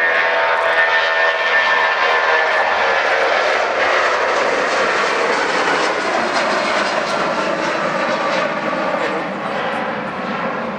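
An airliner's engines passing close by: a loud rushing noise with a whine through the first few seconds, slowly fading toward the end.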